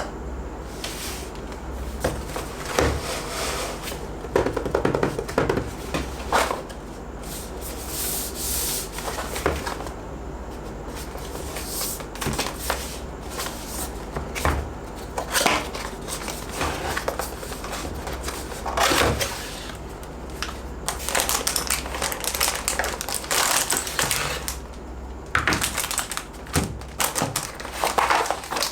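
Mechanical keyboard box and packaging being handled and opened: irregular knocks and clicks with bursts of rustling, over a steady low hum.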